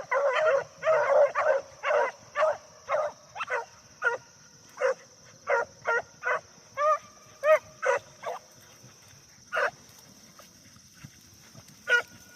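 Beagle hounds barking in short, pitched barks: a rapid run of overlapping barks for the first two seconds, then single barks about every half second that thin out, with a last bark near the end. A steady high-pitched whine runs underneath.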